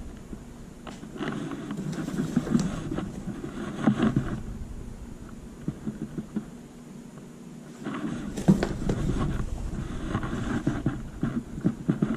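Fabric caps being handled close to the microphone: rustling with light clicks and knocks, in two spells with a quieter pause in between.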